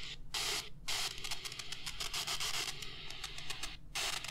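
Static and interference noise from a Kaito KA345 portable radio's speaker, tuned near the top of the AM band with no station. It cuts out briefly three times as the DSP tuner steps between frequencies.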